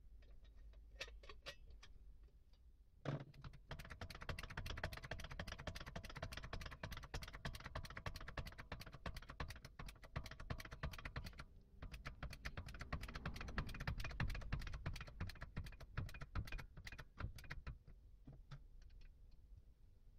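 Rapid, faint metallic clicking and rattling from a restored 2-ton hydraulic trolley jack as it is handled and worked by hand. The clicking starts about three seconds in, breaks off briefly midway, and thins out near the end.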